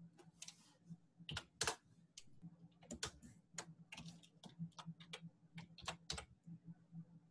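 Faint, irregular clicking and tapping of a computer keyboard and mouse as someone works at a computer, about twenty quick clicks in a few uneven clusters.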